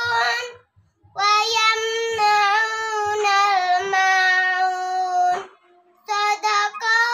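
A young girl's voice reciting the Quran in melodic tartil style, with long held notes. She pauses for breath twice, briefly about a second in and again near the end.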